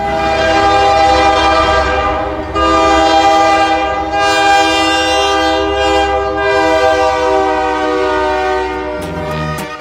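Train horn blowing one long multi-tone chord for about nine seconds over the low rumble of a passing train, cutting off near the end.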